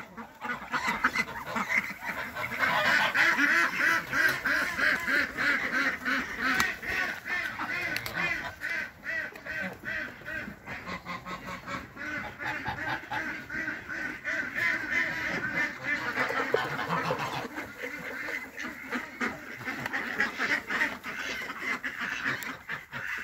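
A flock of domestic ducks quacking continuously, many calling over one another, loudest a few seconds in.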